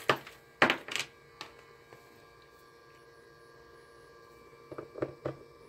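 An oscilloscope probe and its cable being picked up and handled: a few sharp clicks and knocks in the first second and a half and again about five seconds in, over a steady faint electrical hum.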